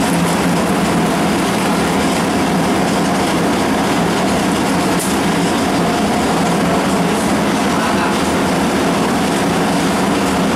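Loud, steady mechanical drone with a faint hum running under it and no letup.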